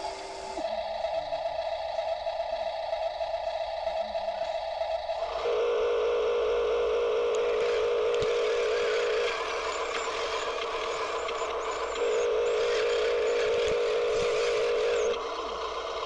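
Electric motors and gearboxes of a radio-controlled excavator whining steadily, the pitch and loudness stepping up and down every few seconds as its functions start and stop.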